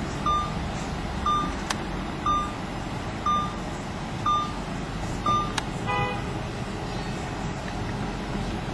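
Street traffic with an electronic beeper sounding six short, high beeps, one each second, then a brief car horn toot about six seconds in.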